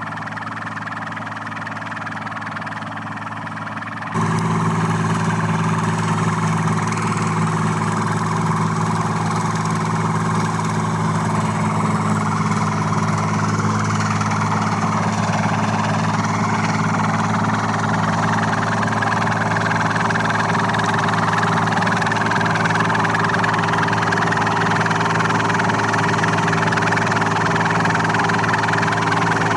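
Engine of a heavy tree-cutting machine running steadily at constant speed. About four seconds in it abruptly turns louder and fuller.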